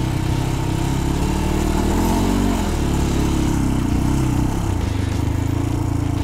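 Motorcycle engine running steadily while riding, with wind noise over the microphone; the engine note wavers briefly about two seconds in.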